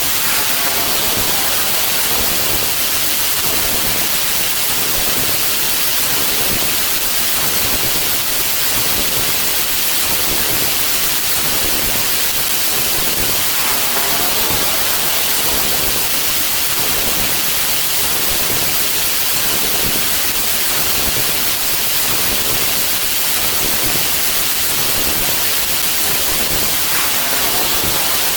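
Loud, steady hiss of static, like white noise, unchanging throughout, with faint wavering tones showing through briefly about halfway and near the end.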